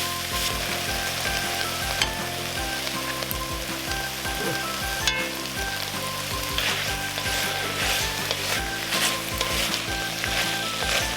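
Food frying and sizzling in a pan while it is stirred, with occasional scrapes and clicks. Background music with a simple melody plays under it.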